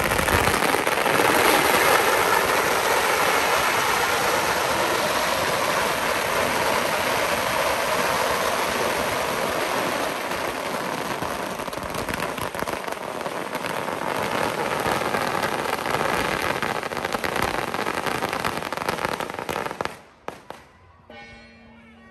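A long string of firecrackers going off, a dense, continuous crackle of rapid bangs that stops abruptly about twenty seconds in.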